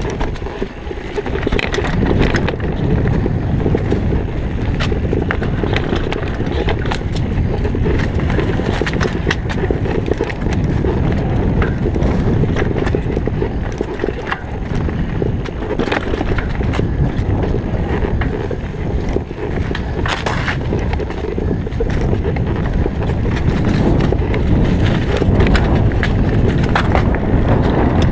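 Santa Cruz V10 downhill mountain bike descending a rough dirt trail covered in dry leaves, heard from a bike-mounted camera: a continuous low rumble of tyres and wind buffeting the microphone, broken by frequent short rattles and knocks as the bike hits rough ground.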